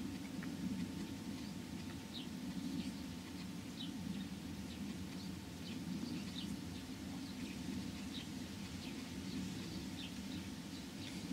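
Small birds chirping, many short high calls scattered throughout, over a steady low rumble; a single sharp click right at the end.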